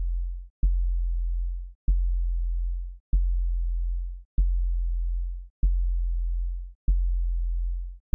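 Deep, low electronic tone pulsing on and off in a steady rhythm: each pulse starts with a sharp click, holds for about a second and cuts off, repeating roughly every 1.2 seconds, about seven times.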